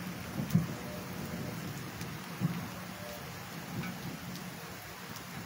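Steady rain falling on grass, with a few soft low thumps, the loudest about half a second in.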